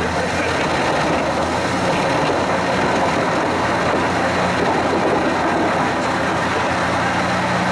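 Jenz HEM 561 Z wood chipper running under load, wood chips pelting down from its discharge into a metal dumper skip: a loud, steady rushing noise with a low machine hum under it.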